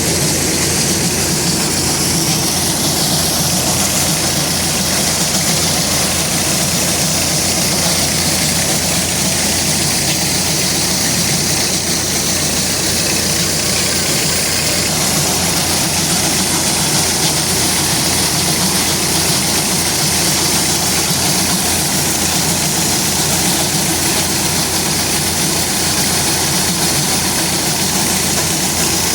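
Engine of a corn harvesting machine running steadily at constant speed, with a hiss over a low, even drone.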